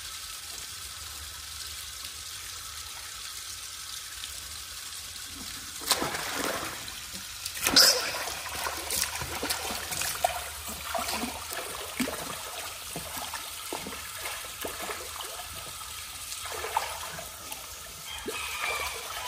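Water running steadily, then from about six seconds in, irregular splashing and slapping in shallow water as a pet monkey plays in a small pool, the loudest splash coming about two seconds later.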